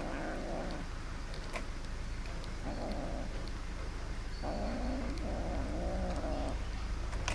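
A kitten growling over its food in four separate bursts while feeding from a shared dish, a food-guarding growl, with faint clicks of eating between them.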